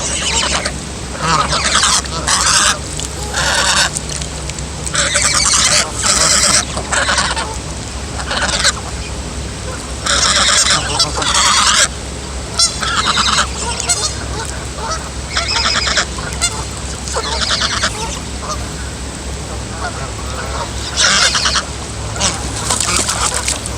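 Gosling (baby goose) honking: many short, harsh, high-pitched calls, each under a second, in irregular bouts with brief pauses between.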